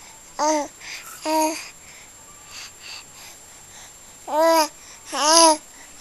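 Baby cooing: short, high-pitched vowel sounds that rise and fall in pitch, two about half a second and a second and a half in, and two more louder ones near the end, with a few softer sounds between.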